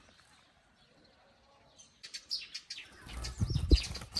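Quiet for about two seconds, then a bird chirping in quick short high notes. A loud low rumble with a thump sounds on the microphone about three and a half seconds in.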